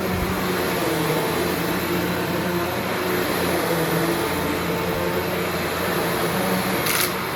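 Eureka Alimta vacuum cleaner running steadily while vacuuming, its motor hum wavering slightly in pitch over a constant rush of air. There is a brief rattle near the end.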